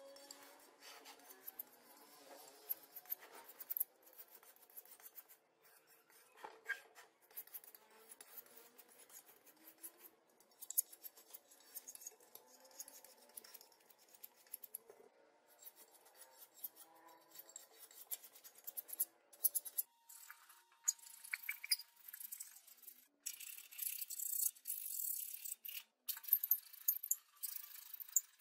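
Putty knife and spreader scraping body filler onto a Vespa sidecar's steel panel: soft, irregular scrapes and light clicks. Near the end a louder, steady rasping rub runs back and forth across the filler-coated panel.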